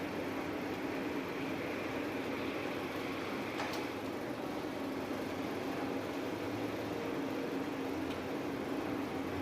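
Kaneko planer machine running steadily: an even mechanical noise with a constant hum, and one faint click about a third of the way in.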